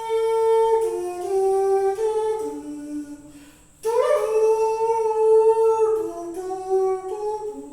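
A man humming a tune with his voice: a short phrase of held notes that steps down in pitch, then is repeated from about four seconds in.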